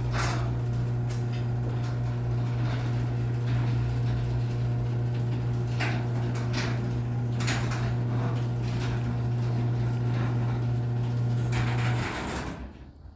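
Garage door opener motor running steadily as it drives a non-insulated Clopay 8x7 sectional garage door along its track, with a few light clicks and rattles from the door. The motor stops about twelve seconds in.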